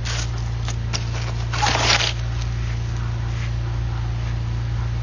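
A steady low mechanical hum, with scraping and rustling over the first two seconds, loudest just before two seconds in.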